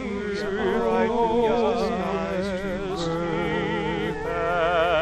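Male voice singing a slow hymn-like song with wide vibrato on long held notes, over sustained keyboard chords.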